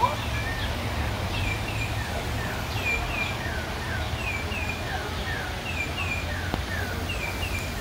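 Birds chirping: a repeating run of short, falling chirps, mostly in pairs about a second apart, over a steady low rumble.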